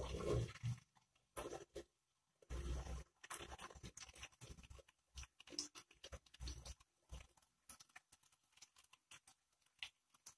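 Hot cooking oil crackling and spitting in irregular fits as handfuls of sliced okra are dropped into a pot to fry, with soft pattering of the pieces landing.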